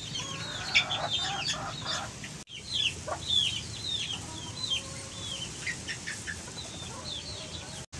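Chickens calling: a string of short, high peeps, each sliding down in pitch, several a second, with a few lower clucks in the first second or so.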